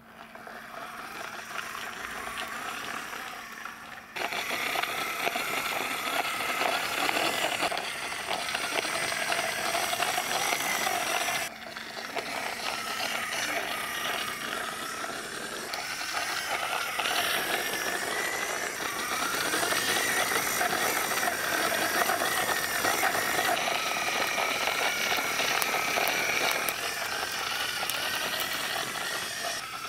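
Plastic toy car-carrier truck pushed by hand across a wooden floor, its wheels rolling and rattling, with a whir that rises and falls in pitch as it moves. It gets louder suddenly about four seconds in.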